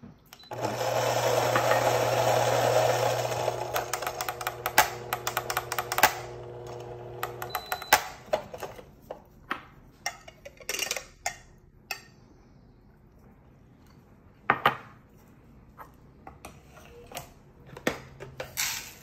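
Electric burr coffee grinder running with a steady motor hum for about seven seconds while it grinds a 10-gram dose of beans, then stopping. After it stop, ceramic clinks and knocks follow as the catch cup is tapped and emptied into a cupping bowl.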